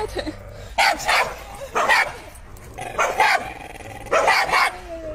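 A dog barking repeatedly, short sharp barks roughly a second apart.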